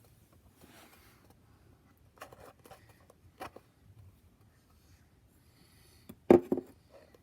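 Faint handling noises, small scrapes and light clicks, then one short, much louder sharp sound about six seconds in.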